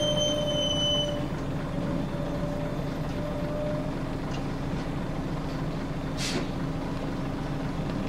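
A Scania DSC9 six-cylinder diesel in a Scania L94UB bus running at low revs, heard from inside the saloon. A high squeal fades out about a second in, and there is a short hiss of compressed air about six seconds in.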